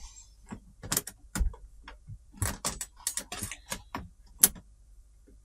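Irregular clicks and knocks of small hard parts and tools being handled on a workbench during TV reassembly, with the sharpest knock about three-quarters of the way through.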